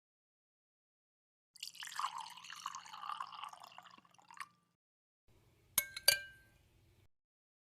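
Tea poured into a glass for about three seconds, the stream tailing off. A couple of seconds later come two quick clinks of glass, the second ringing briefly.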